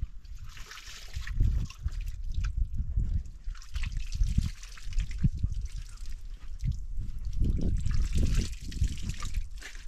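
Liquid trickling and splashing as it is poured from a plastic jerrycan, over irregular low rumbling bumps.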